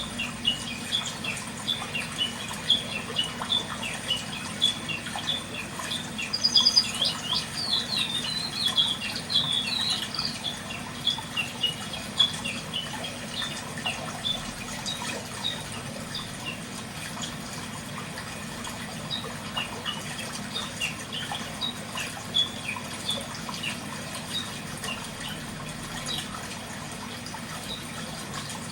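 Small birds chirping repeatedly in short high notes, with a busier, louder run of calls about six to ten seconds in, over a steady low background rush.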